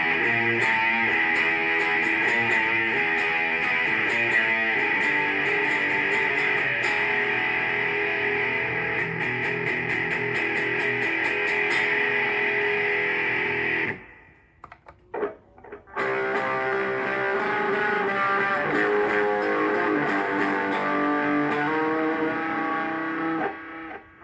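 Electric guitar played through a Zoom G1X Four multi-effects pedal, one preset patch sounding for about fourteen seconds. The guitar stops for about two seconds with a couple of small clicks, then a second passage is played on a different patch.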